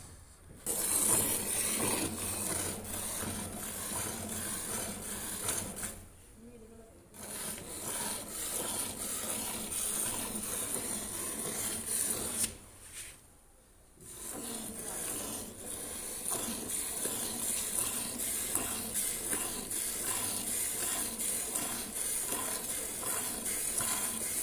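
Cow being milked by hand: quick rhythmic squirts of milk hitting the pail with a hiss, stopping briefly twice, about a quarter and about half way through.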